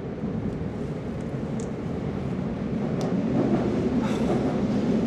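Metro train running, heard from inside the carriage: a steady low rumble that swells about three seconds in, with a sharp click just before.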